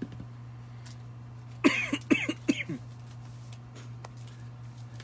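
A person coughing, three quick coughs in a row about one and a half seconds in, over a steady low hum.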